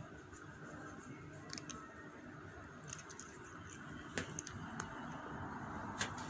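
Soft rustling of a hand stroking a cat's fur, with a faint low rumble and a few soft clicks scattered through.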